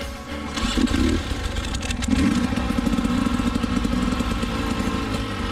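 Dirt bike engine revving: a short burst of revs, then running hard at high revs from about two seconds in.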